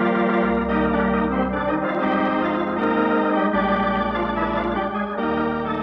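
Organ music bridge opening the act of a radio drama: sustained chords that change every second or so, beginning to fade near the end.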